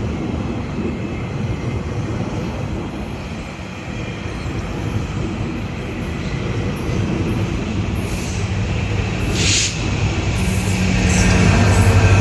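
GO Transit push-pull commuter train rolling past as it pulls away, a steady rumble of bilevel coaches' wheels on the rails. A brief hiss comes about nine and a half seconds in, and near the end a louder steady hum builds.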